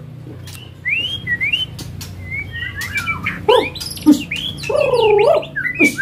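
Caged songbirds singing: rising whistled notes, then a louder run of varied calls with lower, fuller notes about three to five seconds in, among short sharp chirps.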